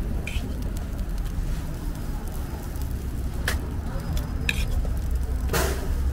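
Stainless steel hotteok presses clacking as they are set down and pressed onto sorghum dough on a metal griddle: four short sharp knocks, the loudest about five and a half seconds in, over a steady low rumble.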